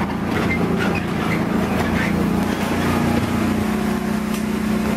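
Engine of a John Deere riding lawn tractor running steadily as the tractor is driven.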